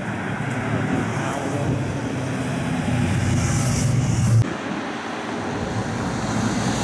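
Police motorcycle engines growing louder as the bikes pass close by, cut off abruptly about four seconds in; after that, steady city road traffic.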